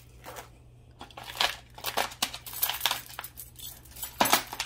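Hands handling jewelry and packaging on a tabletop: crinkling and rustling with a string of light clicks and taps, the loudest just before the end.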